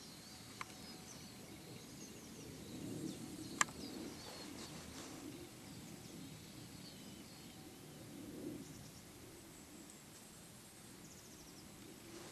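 Quiet meadow ambience with birds chirping faintly in the distance and a single sharp click about three and a half seconds in.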